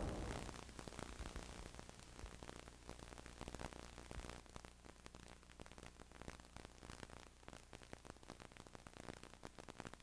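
Near silence: faint hiss and a low steady hum from an old video-tape soundtrack, with the tail of a music fade-out dying away in the first half second.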